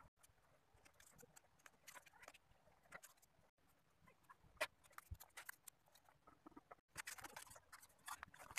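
Faint rustling and crinkling of paper being handled and pressed onto cardboard, with scattered light taps and clicks. The sound drops out completely for an instant twice.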